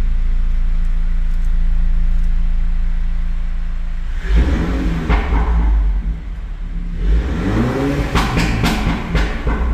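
Mini Cooper S F56's B48 2.0-litre turbo four-cylinder running through a JCW exhaust with its valve open: idling steadily, then revved twice, about four and seven seconds in. As the revs fall after the second blip, the exhaust pops and crackles several times from the pop-and-bang setting.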